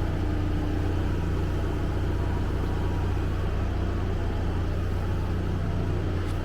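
An engine running steadily at a constant low speed, a deep even drone with no change in pitch.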